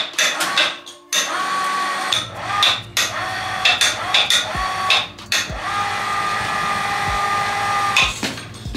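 Electric hoist on a 500 kg jib crane running in several spurts, its motor humming steadily and stopping and starting with clicks as it lifts and lowers a person hanging from the hook. A few dull knocks come in the second half.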